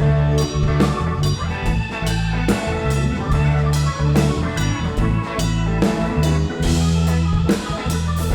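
A live rock band playing an instrumental passage between vocal lines, with a drum kit keeping a steady beat under bass and guitar.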